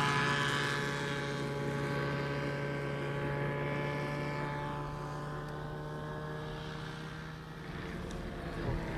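Microlight trike's engine and propeller passing low and flying away, the steady engine note slowly fading and sinking slightly in pitch. A few brief bumps near the end.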